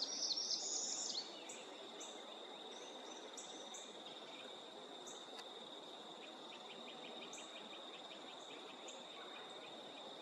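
Steady high insect trill in the background, with short bird chirps: a cluster of them in the first second, then single chirps here and there. A faint quick run of ticks comes about two-thirds of the way through.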